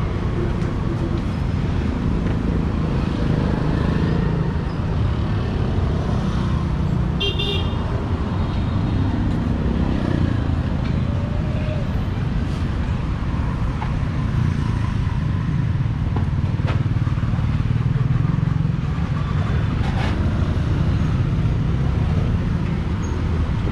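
Street traffic running steadily, with motorbikes and cars making a continuous low rumble, and one short horn toot about a third of the way in.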